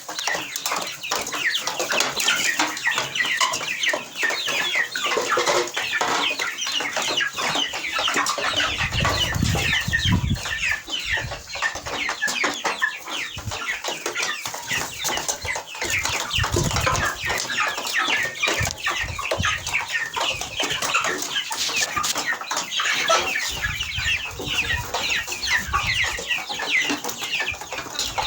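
A crowd of young chicks peeping constantly: many short, high, falling chirps overlapping. A few low rumbling bumps come through around a third of the way in, in the middle and again near the end.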